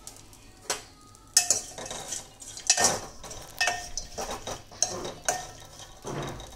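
Steel spoon scraping and clinking against a metal pot while stirring dried fish that is being roasted dry, without oil. It comes as a run of irregular sharp scrapes and knocks, starting about a second in.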